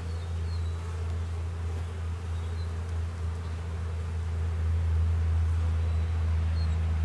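Honeybees buzzing around an open hive in a steady low hum.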